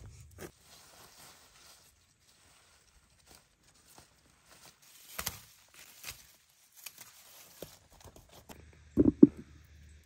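Hand harvesting of garden vegetables: scattered small snaps and crackles of green bean pods being picked off the vines and of soil and potatoes being handled. Two dull thumps a little before the end are the loudest sounds.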